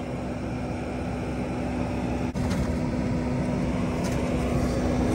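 Kubota SVL95 compact track loader's diesel engine running steadily under load while its lift arms hold and lower a car, with a constant low hum.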